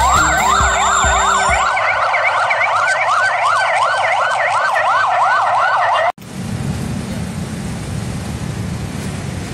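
Several ambulance-convoy sirens sounding together in fast, repeated rising sweeps, out of step with each other. They cut off abruptly about six seconds in, leaving a steady low rumble.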